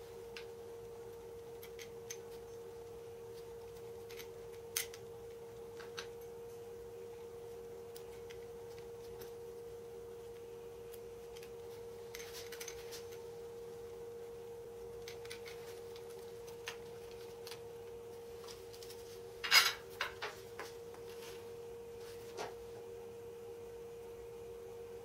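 Small electronic parts and a circuit board handled on a cutting mat: scattered light clicks and taps, with the loudest cluster about two-thirds of the way in. A steady faint tone hums underneath throughout.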